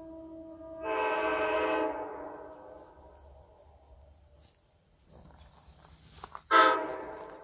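Nathan Airchime K5LA five-chime air horn with Big Tag bronze diaphragms blowing two blasts. A chord lasting about a second comes about a second in, and a short, louder blast comes near the end, after the rising sound of the approaching vehicle.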